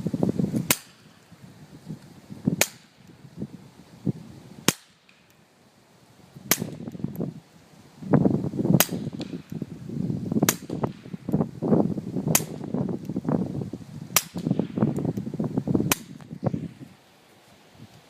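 Suppressed .22 LR shots from a firearm fitted with a Liberty Essence suppressor: nine sharp reports at a steady pace of about one every two seconds. Irregular low rumbling fills the gaps between shots.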